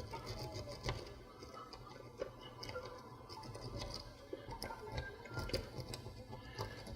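Lock pick scraping and clicking over the pin tumblers inside a deadbolt cylinder while a tension wrench holds the plug under tension. Light, uneven scratching with scattered small clicks from a pick being raked and worked against the pins.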